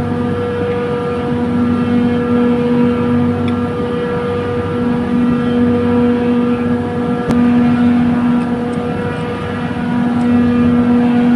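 Trane chiller compressor running with a steady mechanical hum and whine, the abnormal noise on its discharge-valve side. A lower droning tone swells and fades every couple of seconds, and a single sharp click comes about seven seconds in.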